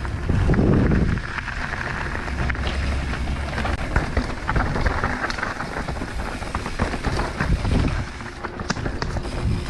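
Wind buffeting the microphone over continuous crackling and rattling, as from a mountain bike rolling over rough ground, with low rumbling gusts, the strongest about half a second in.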